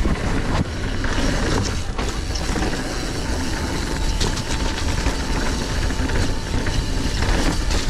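Mountain bike riding fast down a dirt downhill trail: steady wind rush and rumble on the bike-mounted camera's microphone, with tyres on loose dirt and a few knocks from the bike over bumps.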